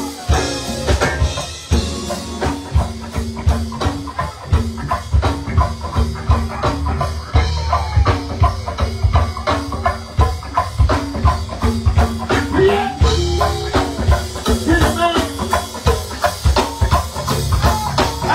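Live go-go band playing, with drum kit and congas driving a dense, steady percussive groove over a heavy bass.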